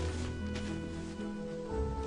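Film score music: held notes over a steady low bass.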